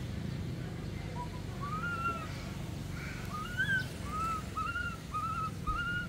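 Young macaque giving a string of short, high calls that each rise and fall in pitch: one about a second in, then about two a second through the second half, over a steady low background rumble.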